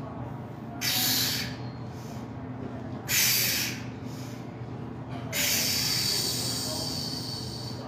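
Forceful hissing exhales from a man bench pressing a heavy barbell in a drop set to failure. Two short breaths come about one and three seconds in, then a long strained one from about five seconds in as he pushes a hard rep.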